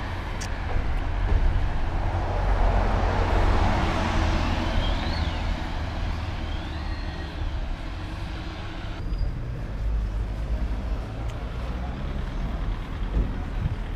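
Street traffic: cars and a bus passing on the road, with a steady low rumble and a louder swell a couple of seconds in as a vehicle goes by. Two short high squeals come around the middle, and the sound changes abruptly about nine seconds in.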